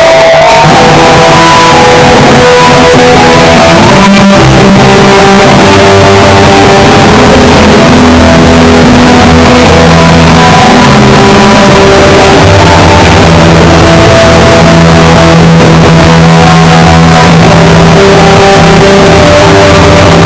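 Oi!/street-punk band playing loud, with distorted electric guitar, bass and drums in an instrumental stretch without vocals.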